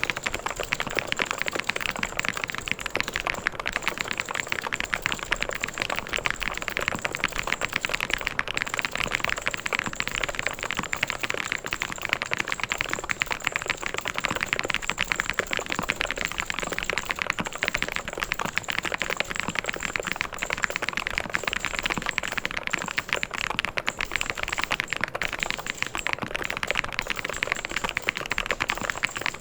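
Mechanical keyboard being typed on fast and without pause: a dense, unbroken stream of key clicks.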